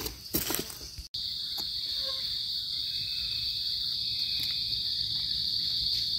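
Rubber boots crunching through dry leaf litter for about a second, then a steady high-pitched insect drone.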